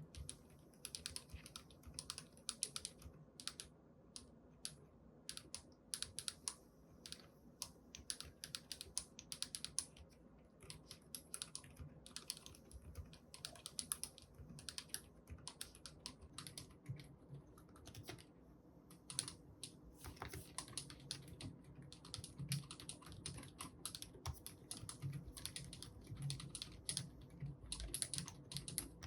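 Typing sound test on a NocFree Lite split keyboard with silent Outemu Honey Peach V3 switches and PBT doubleshot keycaps: a quiet, irregular patter of keystrokes with a short lull around the middle.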